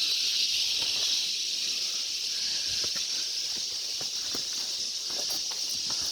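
Cicadas calling in chorus: a steady, high-pitched shrill that eases slightly after about a second.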